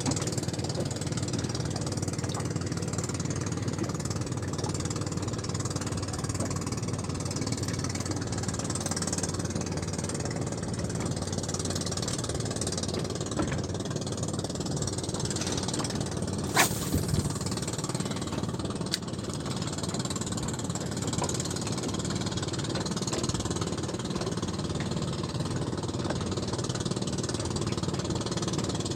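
A small boat's motor idling steadily, with a sharp knock a little over halfway through.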